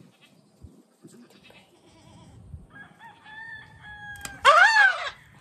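A baby goat bleating once, loud and short, rising and falling in pitch, just after a sharp click of the ear-tag applicator as the tag is punched through its ear. A fainter, steady held call from another animal comes shortly before it.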